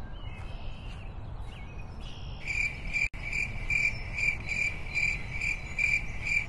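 Cricket chirping in a regular pulse, about two to three chirps a second, starting about two seconds in, over a low steady background hum.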